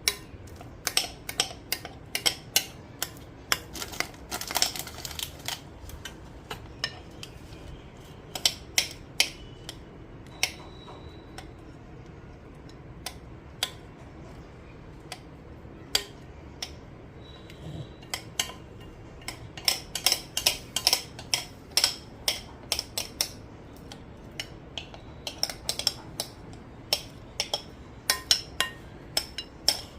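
A spoon clinking, tapping and scraping against a mixing bowl, getting the last of the banana cake batter out. The sharp clinks come in busy runs, with a sparser spell in the middle.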